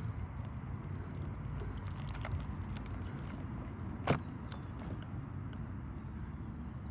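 Stainless-steel cell punch being twisted down through beeswax comb and its midrib: faint scattered crackles and ticks, with one sharper click about four seconds in, over a steady low rumble.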